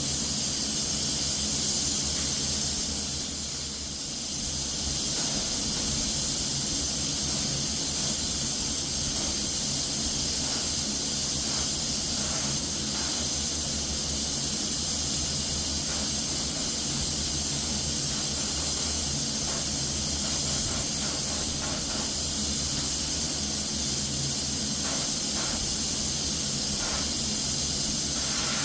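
Spray gun hissing steadily as Cerakote is sprayed on, briefly easing off about four seconds in, over a steady low hum.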